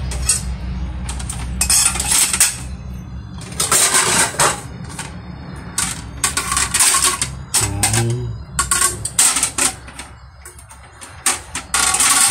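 Plates clattering and clinking against one another and the wire of a stainless-steel dish rack as they are slotted in, in irregular bursts over a steady low hum.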